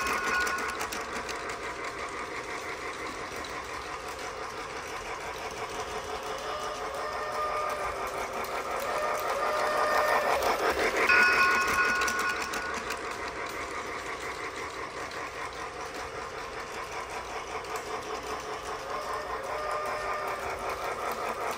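Battery-powered toy train running on plastic track: a steady motor buzz with rapid wheel clatter, growing louder toward a peak about halfway through and fading again as it circles the loop. Short steady tones sound near the start and again about eleven seconds in.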